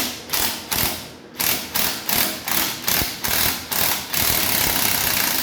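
Impact wrench run in reverse, hammering in about ten short trigger bursts and then held for a second and a half as it spins a front shock absorber's mounting nut loose.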